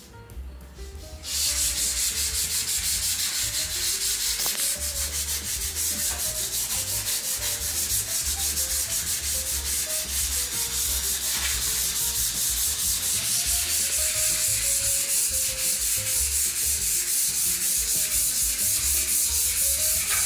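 Emery paper rubbed by hand over dried wall putty in rapid, steady back-and-forth strokes, sanding the putty smooth. The strokes start a little over a second in.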